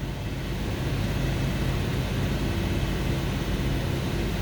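2002 Toyota Sequoia's 4.7-litre V8 held steady at about 2,000 rpm, running with a misfire that the scan data puts on cylinder number 4 at this speed.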